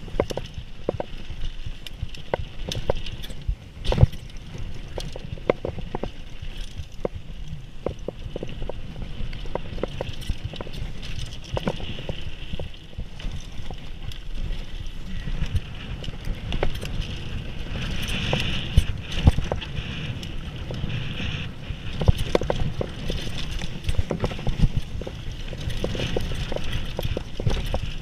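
Mountain bike descending a dirt flow trail: tyres rumbling over the dirt with a constant rattle from the bike and many sharp knocks and clatters over bumps.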